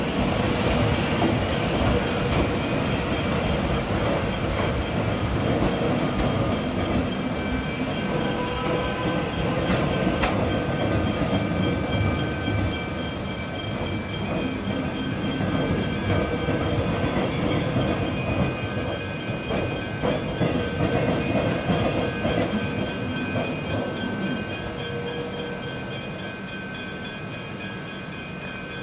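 Melbourne suburban electric train moving off and drawing away: a steady electric whine from the traction equipment over the rumble and knock of wheels on the rails, slowly fading as it recedes.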